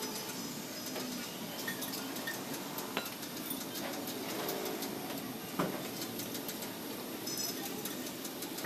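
Steel bearing cup clinking and knocking against a metal pan of cleaning oil as it is turned and washed by hand, with a few sharp clinks over steady background noise.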